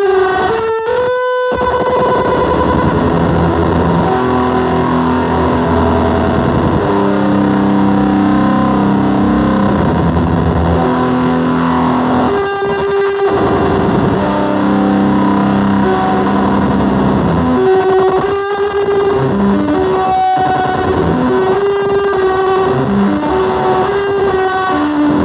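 Tone Collector Custom Noise Ensemble noise pedal played through a Headrush speaker: harsh, distorted held tones that shift in pitch, with a few sudden brief drop-outs.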